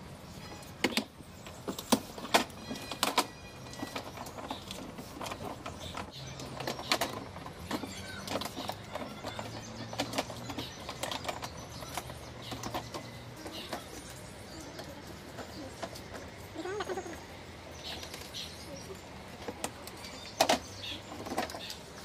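Hands and a screwdriver working the plastic top cover of an LG semi-automatic washing machine loose: scattered clicks, taps and knocks of hard plastic, with louder knocks a couple of seconds in and near the end as the cover comes free.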